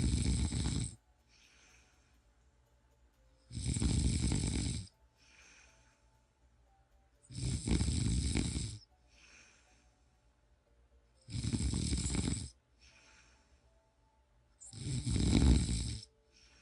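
A person snoring in a slow, even rhythm: five loud snores about four seconds apart, each followed by a much fainter breath out.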